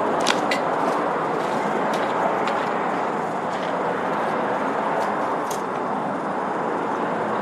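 Steady outdoor background noise of road traffic, with several light clicks and taps scattered through it.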